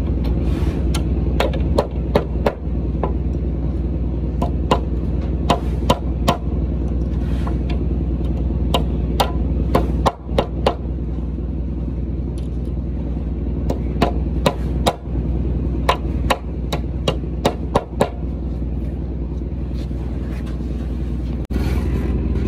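Claw hammer striking the steel hold-fast rods and their fixings on a timber door frame: a string of sharp, ringing blows in irregular bunches, over a steady low hum.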